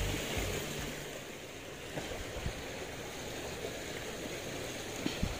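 Fast-flowing river water rushing steadily, with a few faint knocks about two seconds in and again near the end.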